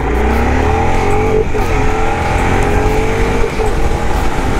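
Yamaha Bulldog 1100's air-cooled V-twin pulling hard, its pitch climbing, dropping at a gear change about a second and a half in, then climbing again to another shift near the end. Heavy wind rush on the microphone at speed.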